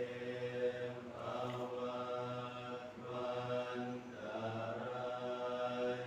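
Buddhist group chanting in unison, held on a steady, level pitch in phrases with short breaks for breath.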